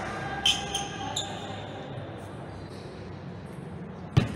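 A table tennis ball bounces with three short, sharp ticks in the first second and a half. About four seconds in comes a single loud, deep thump on the wooden floor as the player lunges into his serve.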